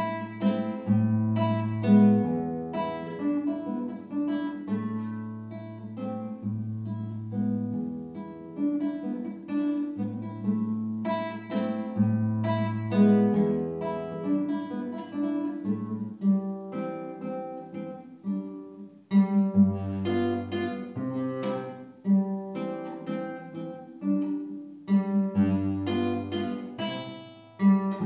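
Classical nylon-string guitar played solo, fingerstyle: plucked melody and chord notes over a separate low bass line, with a short break about nineteen seconds in.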